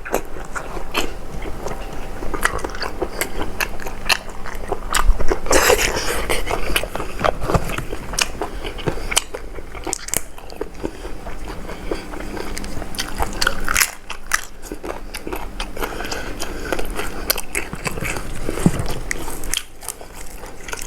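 Close-miked eating: a person biting and chewing springy squid and seafood salad, with many irregular wet clicks and crunches.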